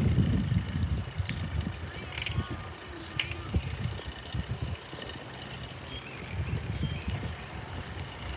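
Wind buffeting the microphone while riding a bicycle, with a gusty low rumble that eases after the first second and swells again near the end. Light rattles and clicks from the bike come through now and then.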